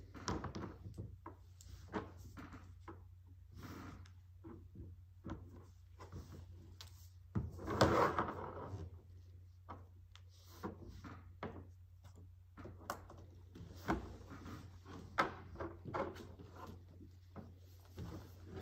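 Small wooden blocks clicking and knocking against one another and a tabletop as they are picked up and set down, in irregular single taps over a low steady hum. One louder noise lasting about a second comes about eight seconds in.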